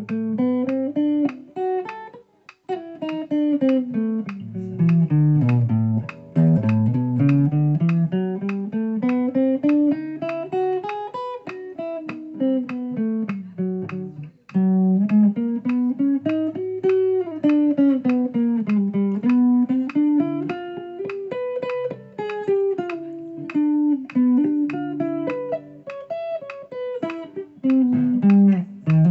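Les Paul-style electric guitar playing the E Phrygian scale one picked note at a time, running up and down it several times. There are short breaks about two and a half seconds in and again about fourteen seconds in.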